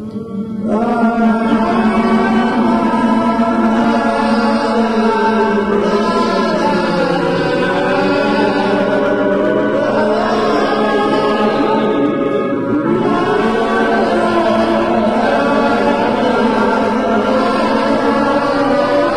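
Vocal music: several voices singing together in harmony, swelling up loud about a second in and carrying on with gliding, held notes.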